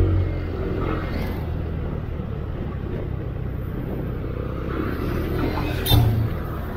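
Motorcycle riding at night: a steady low rumble of engine and road and wind noise. About six seconds in, a short loud burst of noise cuts through.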